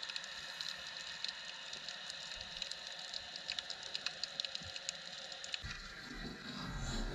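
Underwater ambience heard through a submerged camera: a steady hiss full of fine crackling clicks, with a low rumble of moving water coming in near the end.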